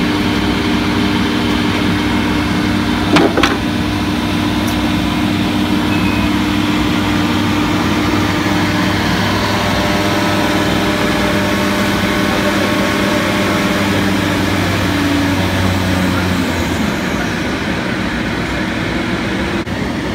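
Woodworking machinery running steadily: a loud mechanical hum carrying several steady tones. There is one sharp knock about three seconds in, and some of the tones drop away near the end as part of the machinery winds down.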